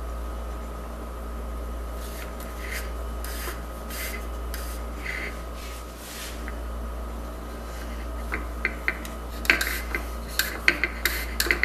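A thin wooden dowel sliding and rubbing through holes in the ribs of an MDF frame, with a run of light clicks and taps from about eight seconds in as it knocks against the wood.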